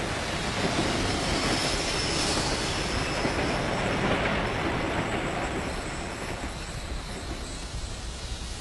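Train running on rails: a steady rushing rumble of wheels and running gear that eases off and grows quieter in the second half.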